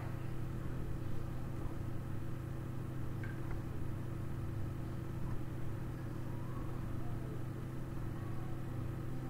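Steady low background hum with no change in pitch or level, and a faint click about three seconds in.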